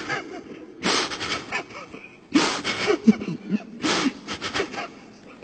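A man weeping: a string of choked sobs and gasping breaths in broken bursts that interrupt a Quran recitation, the reciter overcome mid-verse.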